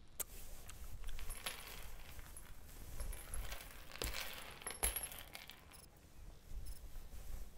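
Metal chain clinking and rattling against wooden floorboards in a few soft, irregular bursts, with a light high ring; the loudest clinks come about four and five seconds in.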